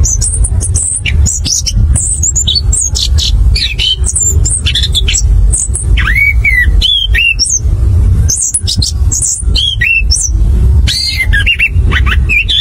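Chestnut-capped thrush (anis kembang) singing a fast, varied rolling song of quick whistles, slurred notes and chatters with brief pauses, over a steady low rumble.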